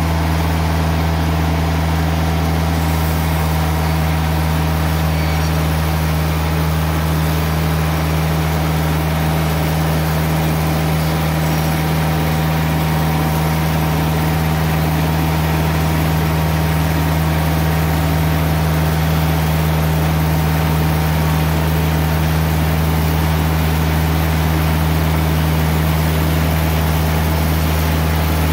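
TimberKing 2020 band sawmill's engine running steadily under load while its Kenne-SAW bandsaw blade cuts along a log, the engine's hum joined by the hiss of the blade in the wood.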